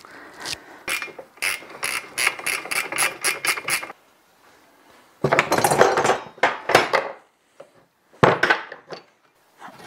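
Quick run of ratchet clicks, about five a second, at a steel boat-trailer winch as it is being unbolted, followed by two louder bursts of metal clanking and clatter.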